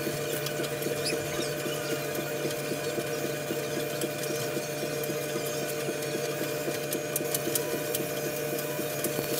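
Laundry machine running with a steady mechanical hum.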